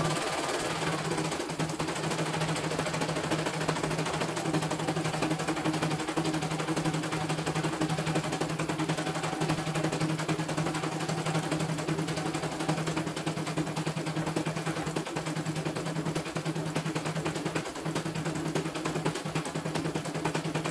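CNY E900 computerized embroidery machine stitching: a rapid, continuous rattle of needle strokes over a steady motor hum.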